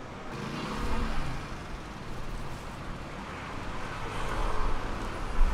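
Street traffic noise: a low rumble of passing vehicles that swells about a second in and again around four seconds.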